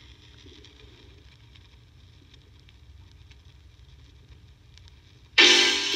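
Crosley portable record player with the stylus running in the lead-in groove of a vinyl record: faint ticks and crackle over a low hum. The first song of side two starts suddenly and loudly about five and a half seconds in.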